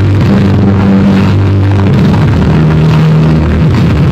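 Music played at very high volume through a truck-mounted wall of car-audio speakers, dominated by a heavy bass line of held low notes that shift in pitch.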